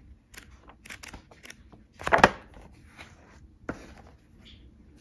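Paper pages of a drawing book being flipped and handled: a string of short rustles and taps, the loudest about two seconds in and another just before four seconds.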